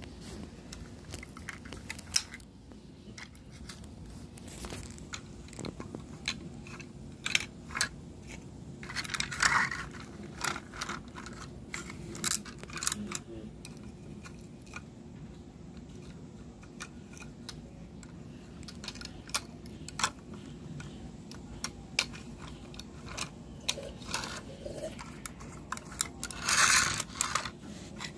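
Handling noise of a plastic Lego truck: scattered clicks and knocks, with two longer rustling scrapes, about nine seconds in and again near the end.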